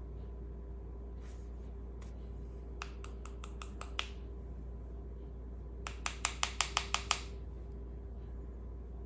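Two quick runs of light taps, about six a few seconds in and a louder run of about eight a little later. They come from a wire hanger held in needle-nose pliers being tapped against a jar of powder paint to knock excess powder off a freshly dipped bullet weight. A steady low hum runs underneath.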